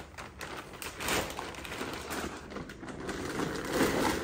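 Thin plastic bag rustling and crinkling in irregular crackles as it is pulled off a chainsaw.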